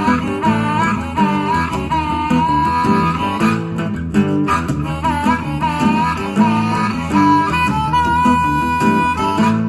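Blues-rock song played back through hi-fi speakers, in an instrumental break without vocals: rhythm guitar and bass under a held, bending lead melody.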